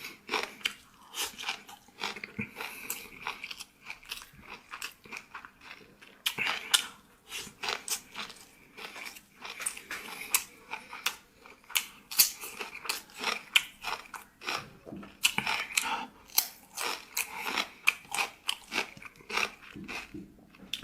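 A person chewing crunchy food close to the microphone, with many sharp, irregular crunches in quick succession.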